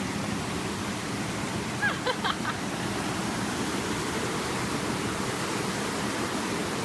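Waterfall's rushing water: a steady, even roar of falling water, with a short faint higher sound about two seconds in.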